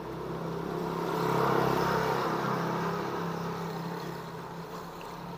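A motor vehicle passing by, its noise swelling and then fading over a few seconds, over a steady low hum.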